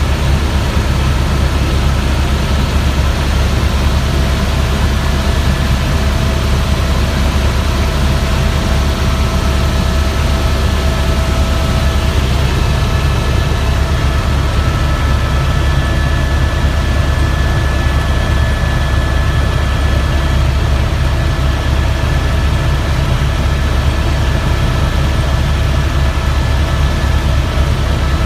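Helicopter in flight heard from aboard: a loud, steady low drone of rotor and engine with a few faint, steady whining tones above it, unchanging throughout.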